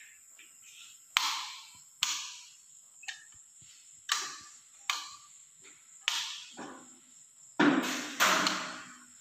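Footsteps of shoes on a glossy tiled corridor floor, about one step a second, each step echoing briefly in the hallway.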